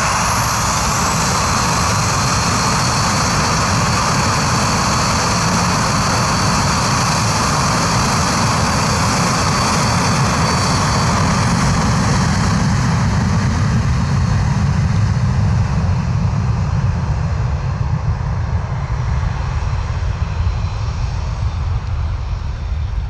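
Four Lycoming ALF502 turbofans of a BAe 146-200 at takeoff power during the takeoff roll: a steady jet roar with a high fan whine. Over the last several seconds the whine fades as the airliner accelerates away, and a low rumble remains.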